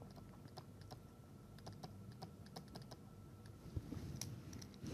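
Faint, irregular taps and clicks of a pen writing and drawing, with a small cluster of louder ones near the end.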